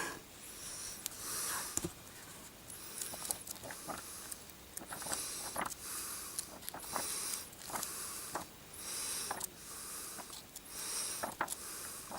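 Heavy, hissing breaths close to the microphone, one about every second, with small clicks between them.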